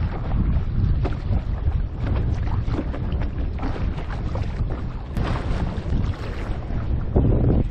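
Wind buffeting an action camera's microphone, with water slapping and splashing against a board moving across the sea.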